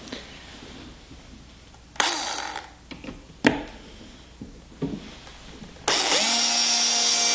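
A few knocks and clicks, then about six seconds in an electric drill starts and runs at a steady speed, its bit drilling a hole through the guide hole of a back plate into the wall of a Harley Tour-Pak.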